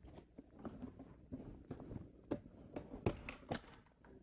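Clicgear 3.5+ golf push cart being folded closed: a series of faint clicks and knocks from its levers, hinges and frame. The sharpest ones cluster about three seconds in.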